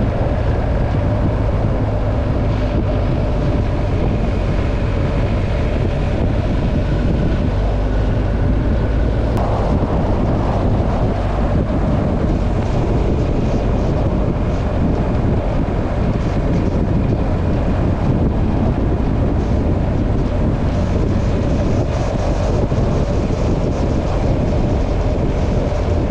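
Motorcycle engine running at a steady cruise, with wind buffeting the microphone while riding.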